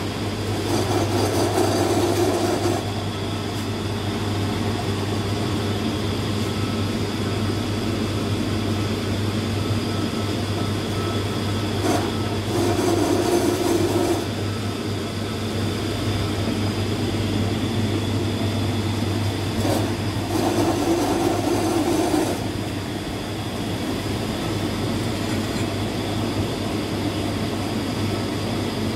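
Steady machine hum: a constant low drone with faint high whines above it, swelling louder for a couple of seconds three times.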